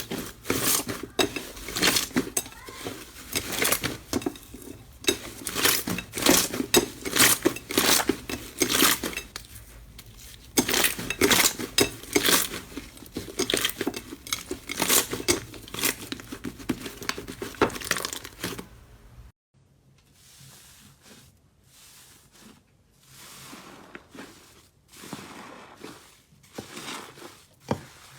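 Slime being squeezed and pressed, a dense run of sharp crackling clicks and pops; about nineteen seconds in it cuts to a much quieter stretch of softer, sparser squishing.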